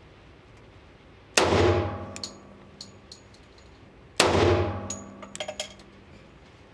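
Two shots from a Springfield Armory Ronin 1911 pistol firing .45 ACP 230-grain rounds, about three seconds apart, each a sharp report with an echoing tail in the indoor range bay. Small metallic clinks follow each shot as the ejected brass cases land.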